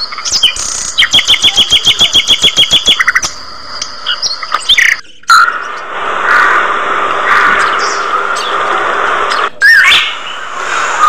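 Budgerigars chirping and chattering: a fast, evenly ticking trill in the first few seconds, then after a brief break a busier chatter, with a few sharp chirps near the end.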